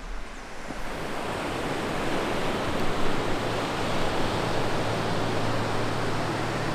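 Ocean surf washing onto a sandy beach: a steady rushing of breaking waves that swells over the first second or two and then holds.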